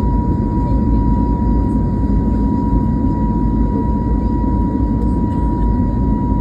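Jet engines of an Airbus A320neo running steadily during its take-off: a steady deep rumble with a single constant tone above it.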